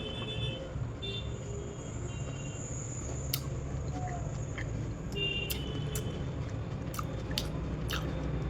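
A person chewing and eating soft fruit close to the microphone, with several sharp clicks over a low steady hum.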